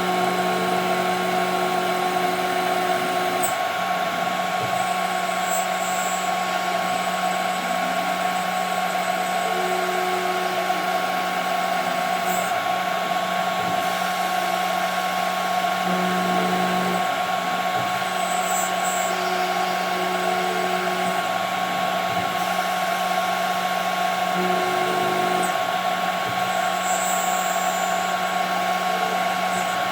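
CNC router spindle machining 5 mm plexiglass: a steady high whine over a hiss of cutting. Lower motor tones shift and break off every few seconds as the axes move.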